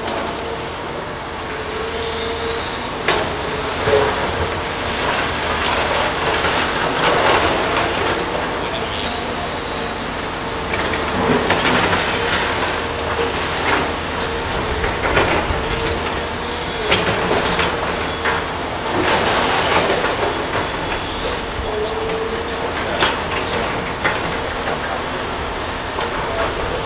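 A heavy aerial platform fire truck's engine and hydraulics running steadily. A mid-pitched whine comes and goes, with scattered metallic clanks and knocks.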